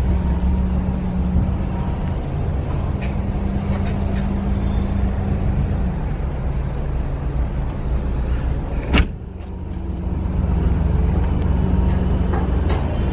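Diesel engine of a Cat 330GC excavator running steadily. A single sharp click about nine seconds in, after which the engine sound dips briefly and comes back up.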